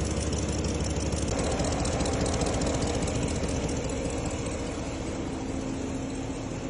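Ram Hemi V8 idling, its exhaust pulses ticking rapidly and evenly: the loud driver's-side tick of exhaust escaping through a cracked downpipe ahead of the catalytic converter.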